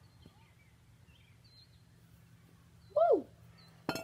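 A loud bird-like call that drops steeply in pitch, about three seconds in, with faint chirping of small birds underneath. Just before the end comes one sharp knock as the baseball bat's tip is set down on the concrete driveway.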